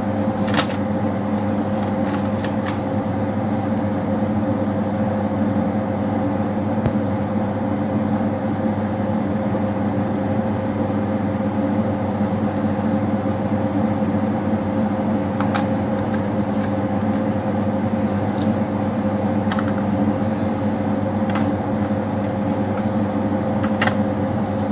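A steady machine hum with several fixed low tones, like an appliance motor running, with a few faint clicks through it.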